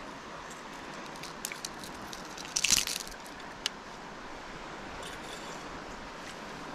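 Steady rush of flowing river water. Over it comes a short burst of crackling, crunching clicks a little before the middle, then a single sharp click about a second later.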